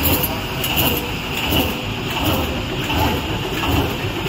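Plastic flyer bag converting machine running, with steady machinery noise and a regular stroke repeating about every three-quarters of a second as the machine cycles through its bags.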